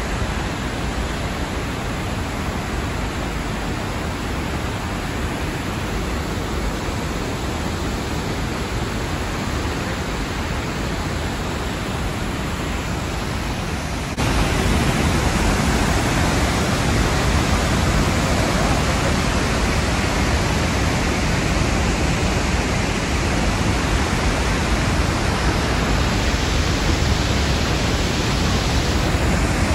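Steady rushing of a large waterfall, the 83-metre Montmorency Falls in heavy flow, with no distinct events. About halfway through it steps up, louder and deeper.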